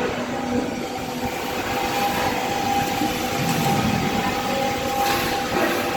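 Workshop machinery running steadily: a constant mechanical din with a held whine on top and a few light knocks.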